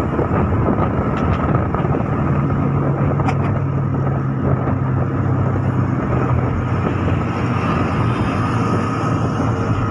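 Steady road and engine noise heard inside a moving car's cabin on an expressway: an even rumble of tyres and engine, with a low hum standing out for a few seconds in the middle.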